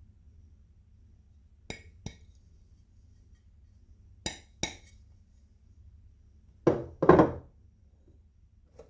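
Two pairs of sharp clinks, then a louder, longer clatter about seven seconds in, and one faint tap near the end: hard marble-run pieces and marbles knocking together.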